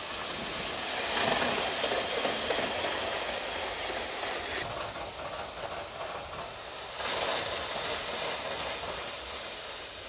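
Aster JNR C57 live-steam model locomotive running with its train of coaches: steam exhaust and wheels running on the rails, louder about a second in and again around seven seconds, then fading as it moves away.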